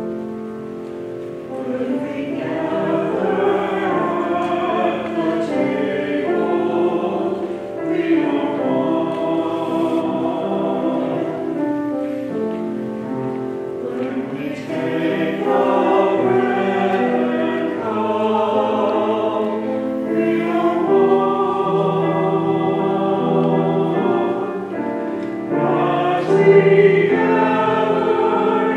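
Small church choir of mixed men's and women's voices singing a choral piece in sustained phrases, with brief pauses between phrases. The singing swells in about two seconds in.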